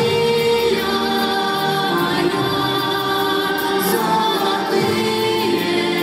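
Large mixed choir singing a song in long held chords that change every second or two.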